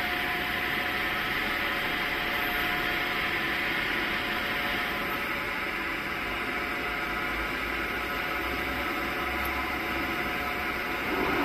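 Steady hum and hiss of running factory machinery, with a thin steady tone through it.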